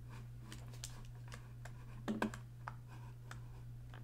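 Scattered light clicks of computer keys, with a few louder ones about two seconds in, over a steady low hum.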